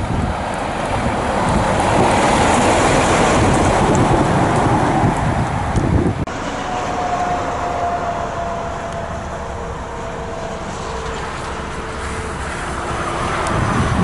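A DAF XF lorry with a drawbar trailer driving past close by, its engine and tyres making a loud, steady rumble for about six seconds. Then it cuts sharply to quieter motorway traffic: a DAF XF105 articulated lorry and cars rolling past with tyre hum and a faint whine falling slowly in pitch, swelling again near the end.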